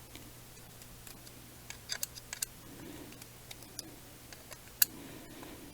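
Small scattered clicks and ticks of a hex driver and small screws being worked into a carbon-fibre quadcopter frame, a few close together about two seconds in and one sharper click near the end.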